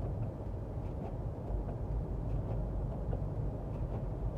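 Steady low rumble of a car driving, with road noise and no sudden events.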